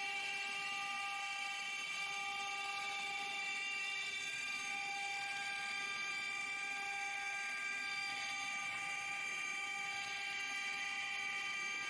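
Spindles of a six-spindle CNC rotary wood engraving machine running, a steady high whine of several even tones that holds without change.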